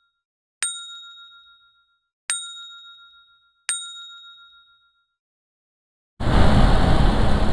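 A bell-like ding sound effect struck three times over dead silence, each strike ringing out and fading, about a second and a half apart. About six seconds in, loud rushing wind and road noise cuts back in.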